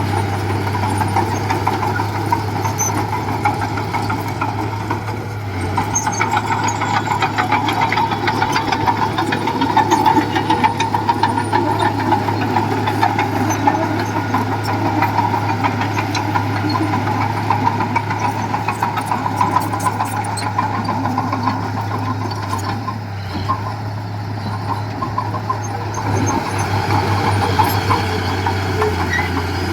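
Diesel engine of heavy earthmoving machinery running steadily, with a fast rough pulse through its low hum.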